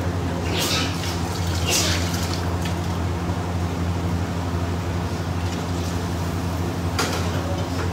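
Prawn and potato curry gravy simmering in a steel kadai over a steady low hum, with three short noisy bursts, about one and two seconds in and near the end.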